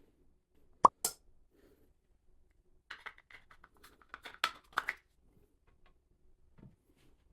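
Small hard objects being handled and set down on a countertop, likely 3D-printed plastic holders and bathroom accessories. A single sharp knock with a short ring about a second in, then a quick run of light clicks and clacks for about two seconds, and a faint knock near the end.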